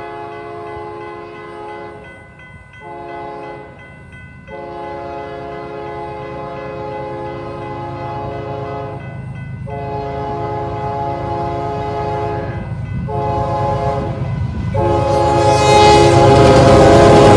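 Union Pacific freight locomotive's air horn blowing a series of long blasts with short breaks, over the low rumble of its diesel engine. Both grow steadily louder as the lead locomotive approaches and reaches the camera near the end.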